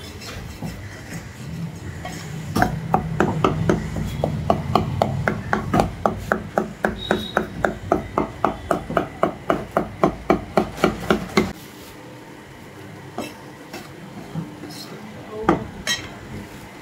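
Heavy steel meat cleaver chopping mutton into keema on a wooden butcher's block: a fast, even run of about four chops a second. It stops suddenly about two thirds of the way through, and a few scattered knocks follow.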